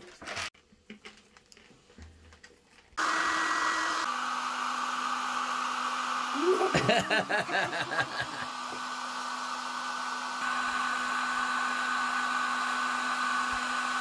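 Handheld hair dryer switched on about three seconds in and running steadily, a blowing rush with a steady motor hum and whine, used to melt chocolate buttons. A child laughs over it for a couple of seconds midway.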